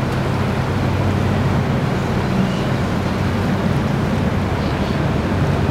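Motor boat's engine running steadily under way, a low even hum with water and air noise around it.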